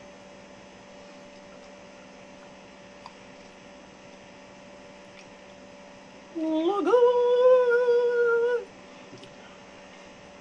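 A person humming one note, sliding up into it about six seconds in and holding it for about two seconds, over a steady electrical hum.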